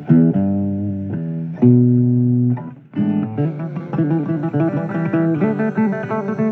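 Instrumental break in a blues song: guitar playing held notes, a short pause about three seconds in, then a busier run of notes.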